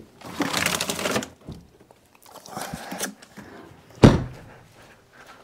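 Handling noise as a battery is lifted out of a chest freezer: a second or so of rustling and scraping, a shorter scrape near the three-second mark, then one loud thump of the chest freezer lid shutting just after four seconds.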